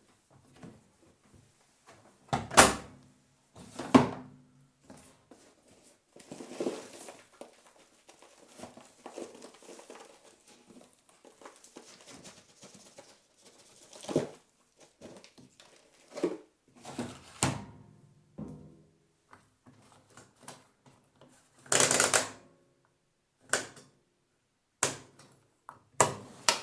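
Washing machine being loaded by hand: clothes rustling and being handled, with a scattering of sharp clunks and knocks against the machine. The loudest knocks come a few seconds in, and a longer, louder clatter comes near the end.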